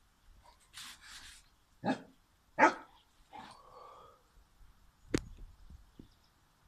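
Bernese Mountain Dog giving two short barks about two seconds in, the second louder, followed by a brief whine. A short hiss comes just before the barks, and a single sharp knock about five seconds in.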